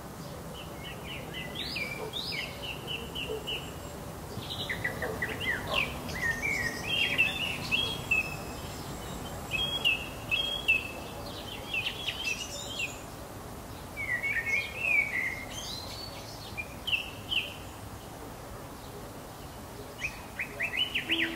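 Songbirds singing: short phrases of quick high chirps and trills, coming every second or two with brief pauses between, over a steady background hiss.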